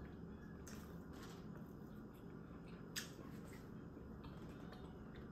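Quiet eating sounds: soft chewing with a few short wet mouth clicks, the sharpest about three seconds in, over a faint steady room hum.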